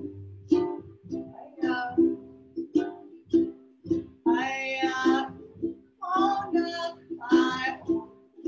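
Ukulele strummed about twice a second with an upright bass plucked underneath, and a woman singing from about four seconds in.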